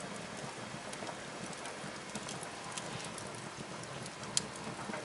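Wood fire of logs over glowing embers burning in a fireplace, crackling with scattered small pops over a steady hiss, and one sharper pop near the end.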